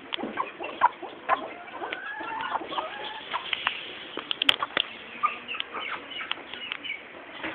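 Chickens clucking in short bending calls, with scattered short clicks and taps throughout.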